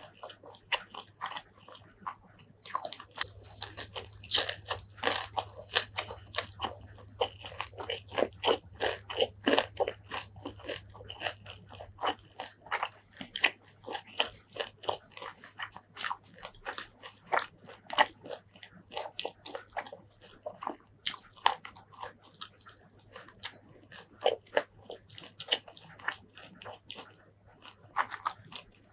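Close-miked eating: a person biting and chewing crisp raw leafy greens, a dense run of wet crunches that is loudest in the first half and eases into slower, sparser chewing.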